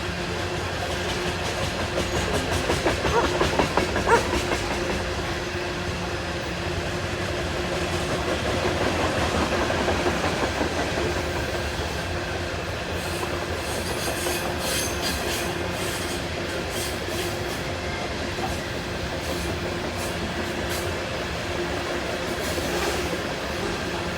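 Norfolk Southern coal train rolling past: a steady rumble of steel wheels on the rail, with wheels clicking over rail joints, a quick cluster of clicks about fourteen seconds in.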